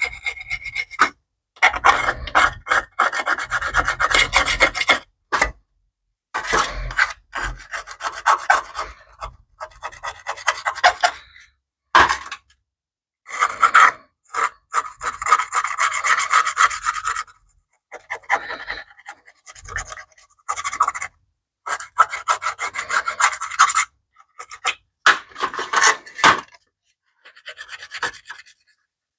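Hand scraping and scrubbing of caked grime off a BMW E30 motor-mount metal heat shield, in bursts of quick back-and-forth strokes a few seconds long with short pauses between them.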